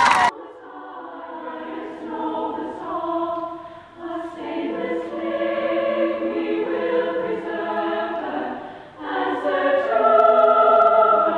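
A choir singing slow, held chords, in phrases broken by short pauses about four and nine seconds in.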